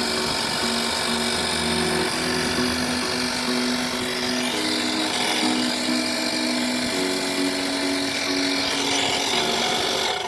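Portable 12 V tire inflator compressor running steadily under background music, whose notes change every half second or so. Both stop abruptly at the end.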